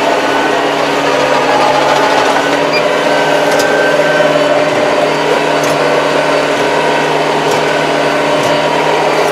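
Kubota 75-horsepower tractor's diesel engine running at a steady speed as the tractor drives, heard from inside the closed cab.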